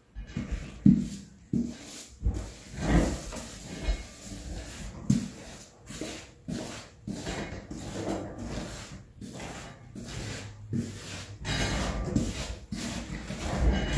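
Brush spreading wet glue over a wooden subfloor: irregular scrubbing strokes of the bristles on the wood, with a few knocks along the way.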